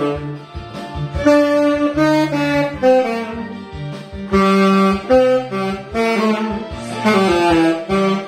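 Saxophone playing a song's melody in held and stepping notes over a karaoke backing track with bass and accompaniment.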